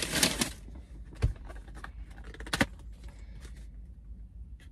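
Handling noises inside a parked car: a brief burst of rustling or jingling at first, a dull thump about a second in, and a sharp click a little later, then scattered small clicks.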